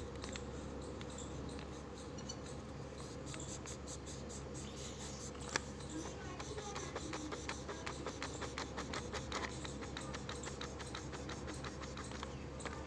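Folded tissue rubbed over oil pastel on sketchbook paper, blending the colour: dry scratchy rubbing that becomes a run of quick strokes, several a second, from about halfway through, over a steady low background hum.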